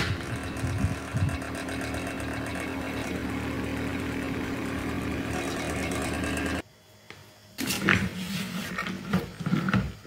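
Small electric fan motor of a disassembled fan heater running with a steady hum, then switched off, cutting out suddenly about two-thirds of the way in. Afterwards come clicks and knocks of the plastic housing being handled.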